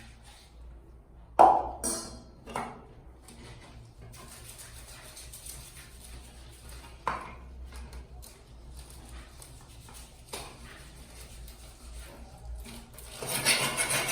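Kitchenware being handled during cleaning: a loud ringing clank about a second and a half in, then a few lighter knocks. Near the end a louder, steady rushing noise sets in.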